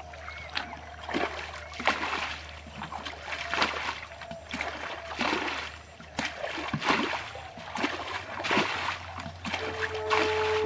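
Muddy pond water splashing as a plastic bucket is dipped in and emptied into a net sack, in repeated splashes about once a second. A steady musical tone comes in near the end.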